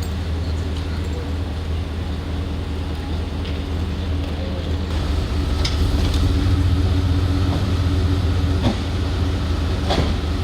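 A vehicle engine running steadily, a low even hum, with a few faint clicks near the end.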